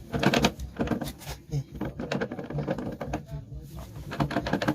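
Honda CB190R single-cylinder engine running with a rapid, irregular mechanical ticking and clatter: the abnormal engine noise being diagnosed.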